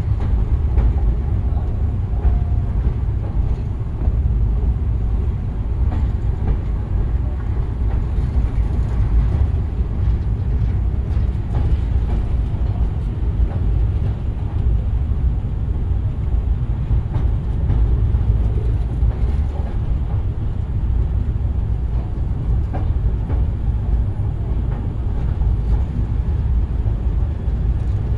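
Steady low rumble of a moving passenger train, heard from on board as it crosses a river bridge.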